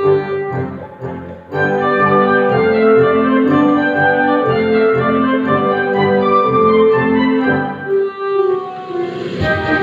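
Children's electronic keyboard ensemble playing an upbeat piece with a steady pulsing bass and sustained organ-like chords. The texture thins briefly, then the full ensemble comes back in about a second and a half in; near the end a cymbal-like wash joins.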